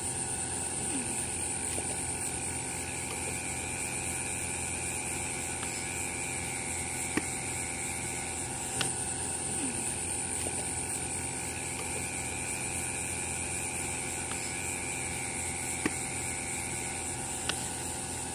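Steady background noise: a low hum with a high, even drone over it, and a few faint clicks.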